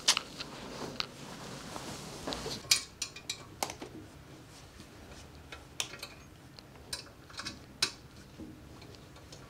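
Scattered light clicks, clinks and taps of hard objects being handled, with a duller thud about two seconds in.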